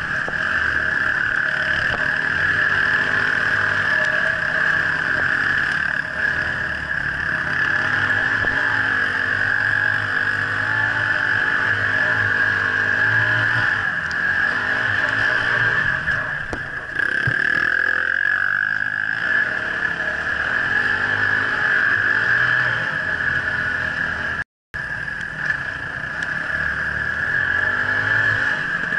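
Off-road dirt bike engine heard from on board, its pitch rising and falling continually as the throttle is worked on a winding trail, over a steady high hum. The sound cuts out completely for a moment about three-quarters of the way through.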